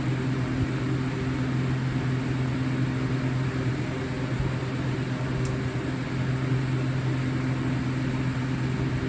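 Steady low hum with a few faint overtones, like an appliance or fan running, holding level throughout; a faint tick about five and a half seconds in.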